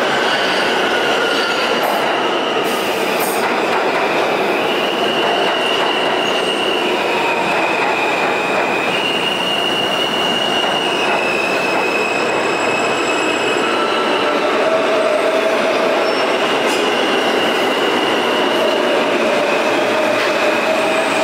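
R160 New York City subway cars rolling along the station track, their steel wheels squealing on the rails in several steady high-pitched tones that shift in pitch, over a continuous rumble of wheels and running gear. A lower steady squeal joins in about two-thirds of the way through.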